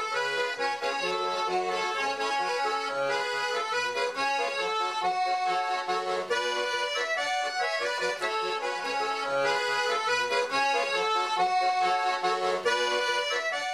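Instrumental background music: a traditional-style tune of held chords over a stepping bass line, beginning to fade at the very end.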